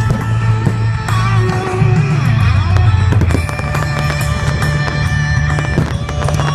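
Fireworks shells bursting and crackling over rock music with guitar, with the sharpest bangs near the start and again about six seconds in.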